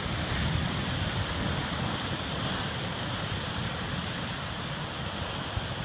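Ocean surf breaking against a rocky shoreline, a steady rush of churning white water, with wind rumbling on the microphone.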